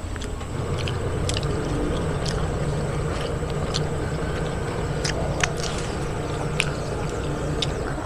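Scattered soft clicks of someone eating with their fingers and chewing. Under them runs a steady low motor hum that sets in about half a second in.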